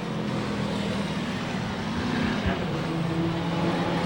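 Race car engines running hard as the cars lap the track, a steady engine drone with the pitch shifting a little around the middle.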